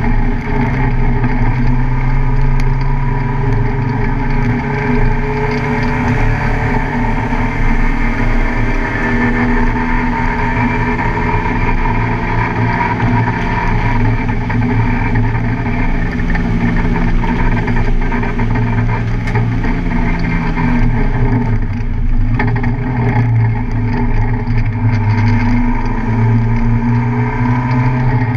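Car engine running hard under load as the car laps a race track, its pitch rising and falling with throttle, with a brief dip about three quarters of the way through.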